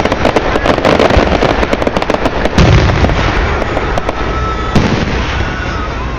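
Aerial fireworks going off: a dense run of sharp crackling pops, then two heavy booms of bursting shells about two and a half and five seconds in, over continuous crackle.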